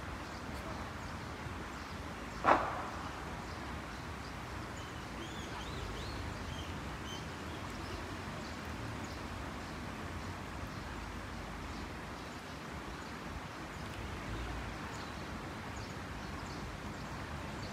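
Outdoor stream-side ambience: steady background noise with some low rumble. One short, loud sound comes about two and a half seconds in, and a few faint high chirps follow a few seconds later.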